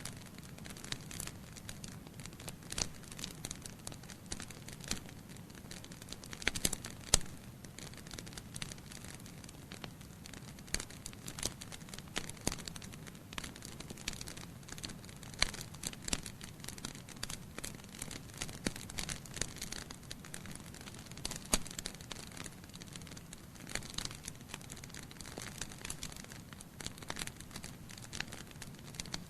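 Wood fire crackling in a fireplace, with irregular sharp pops and snaps, some louder than others, over a steady low rumble.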